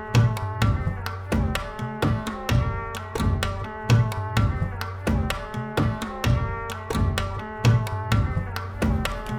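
Background music with a steady drum beat over pitched instruments and a bass line.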